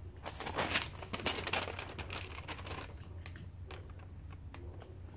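Paper rustling and handled, with short irregular scratching strokes of writing on the sheet.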